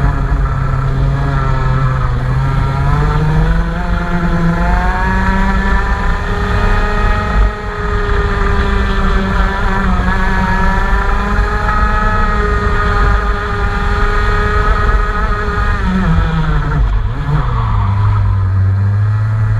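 Engine running on test: its revs climb over a few seconds, hold steady at a raised speed for about twelve seconds, then drop back to a lower, steady idle near the end.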